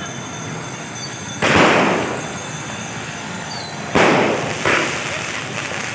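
Firecrackers going off: one bang about a second and a half in, then two more close together around four seconds in. Each bang dies away over about half a second, over a steady background hiss.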